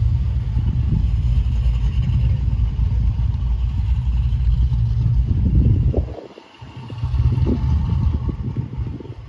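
Low rumble of cars running and driving past, with wind buffeting the microphone. The rumble drops away briefly about six seconds in, then returns.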